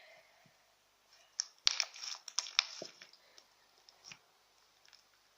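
Glossy homemade slime being squeezed and stretched by hand, giving a run of sharp clicks and pops, bunched together about one and a half to three seconds in and fainter after.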